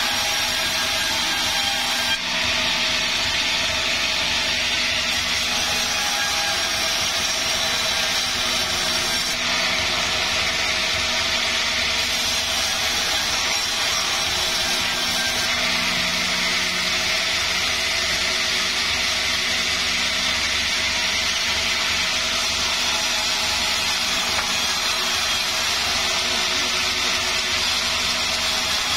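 Sawmill saw running steadily through a large wadang log, ripping it into beams.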